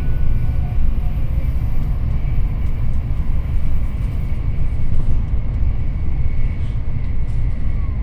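Steady low rumble of an N700S Shinkansen running at speed, heard inside the passenger cabin, with a faint steady high whine over it.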